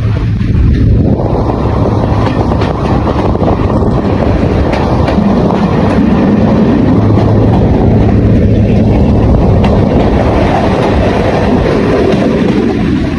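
A train passing close by. Its noise swells about a second in, eases briefly past the middle, then rises again and fades near the end.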